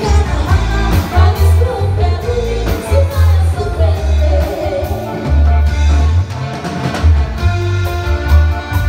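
Live band playing a song through a PA: women singing into microphones over electric bass, electric guitar, keyboard and drums, with a heavy pulsing bass beat.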